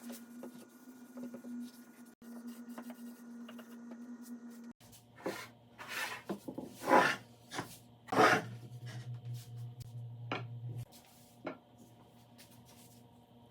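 A run of four or five scraping strokes about a second apart, after a low steady hum that cuts off a little before the middle, with a few light taps near the end.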